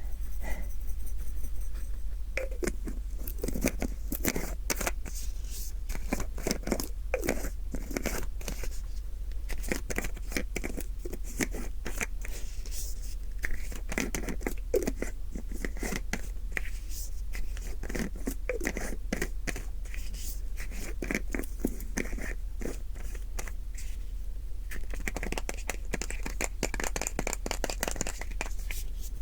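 Close-miked crunching and crackling of an everyday object being handled, a dense, irregular run of quick clicks and scratches.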